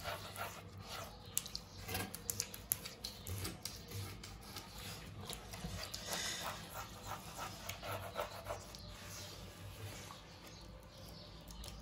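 Hand rubbing salt with a little water and working it into wet, sticky sfenj dough so the salt dissolves. It comes as irregular soft scrapes and squelches.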